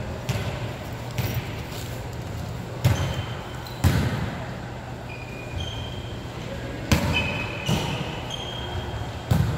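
Volleyball rally: five sharp slaps of hands and forearms striking the ball at irregular intervals, with short high sneaker squeaks on the court floor, over a steady low hum.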